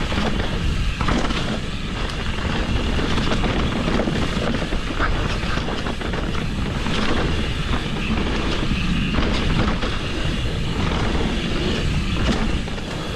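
Mountain bike descending a rough, technical trail: a steady rush of noise with constant rattling and knocks from the tyres and frame going over rocks and roots.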